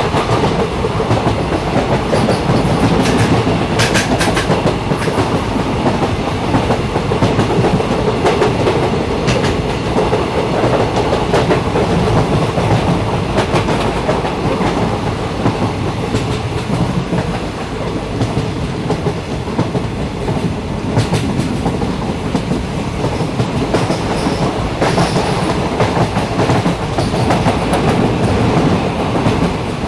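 Train running along the track: a steady rumble, with a few clicks from the wheels now and then.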